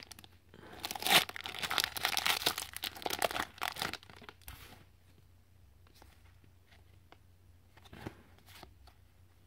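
Plastic wrapper of a trading-card pack being torn open and crinkled, for about the first four seconds. After that it goes quiet but for a few soft ticks.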